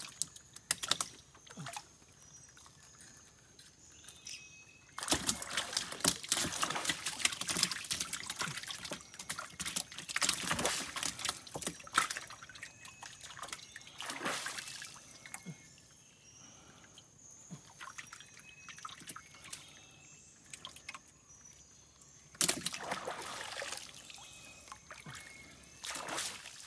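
Water trickling and splashing in several spells, the longest from about five to twelve seconds in and another near the end, with quieter stretches between.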